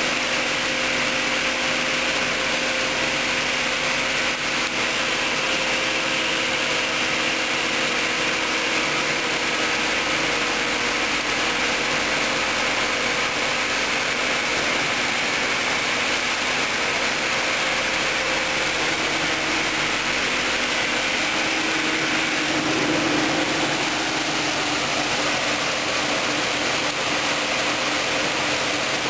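HK-0104/B movable bridge saw cutting a marble slab: its motor runs steadily while the water-cooled diamond disc grinds through the stone. The result is a steady hiss with a hum under it.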